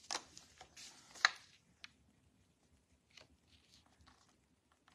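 Cardstock and paper being handled: a folded card opened and a torn paper strip pressed onto it, giving a few soft rustles and light taps, the sharpest click about a second in.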